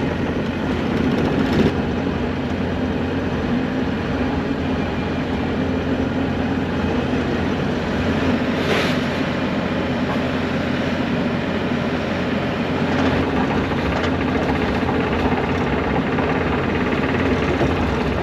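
Bobcat E42 mini excavator's diesel engine running steadily at a low, even speed.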